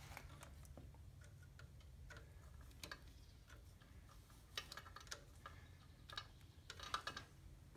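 Faint, irregular light clicks and taps of small parts being handled during wiring work, over a low steady hum.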